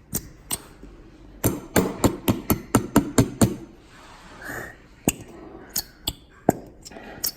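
A glitter glue bottle being whacked against the side of a mixing bowl to shake out the last of the glue: sharp knocks, a quick run of about nine knocks in two seconds, then a few single knocks.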